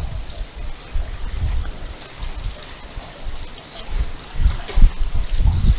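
Shallow muddy water splashing and dripping as a trapped golden jackal paddles and shifts about in it, with stronger splashes near the end.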